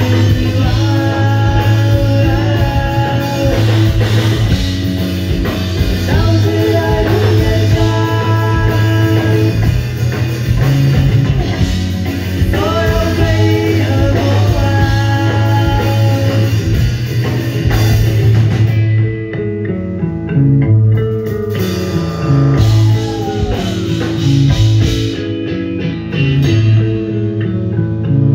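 Live rock band with electric guitar, electric bass and drum kit, a sung melody repeating over the first two-thirds. About two-thirds of the way through the cymbals and drums drop out, leaving a stepping bass line and guitar.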